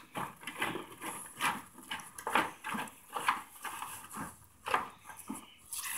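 Cattle shifting and feeding in straw beside a plastic feed tub: a dozen or so short, irregular rustles and knocks.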